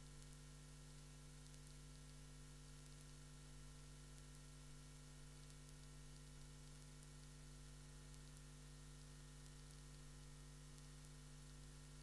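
Near silence: a steady electrical hum with hiss.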